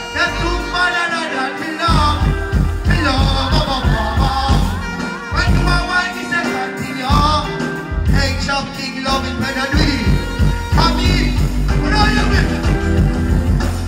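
Live dancehall performance over a stage sound system: a deejay's vocals over a bass-heavy riddim.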